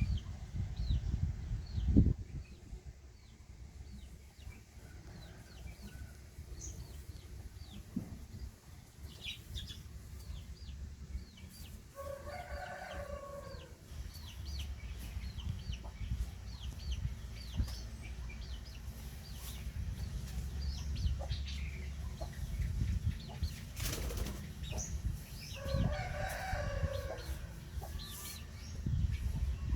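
A rooster crows twice, one long call about twelve seconds in and another about twenty-six seconds in. Many short, faint high chirps run throughout over a low rumble, with a sharp thump about two seconds in.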